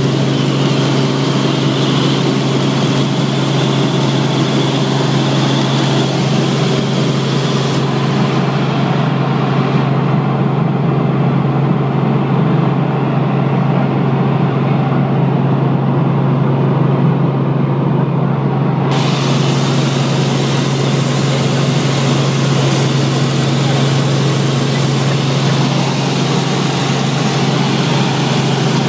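A small helicopter's engine and rotors running in flight, heard from inside the cabin as a steady, loud drone with a constant low hum.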